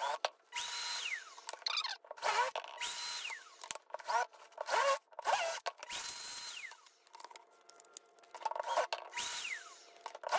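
DeWalt cordless drill running a countersink bit into hardboard in short bursts, played back fast so it sounds high and quick: each burst rises in pitch, holds briefly and falls away as the trigger is released, about four or five times, with clicks in between.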